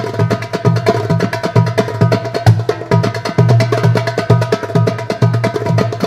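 Darbukas and a frame drum playing together, a fast interlocking rhythm: regular deep bass strokes under a dense stream of rapid, sharp high strokes.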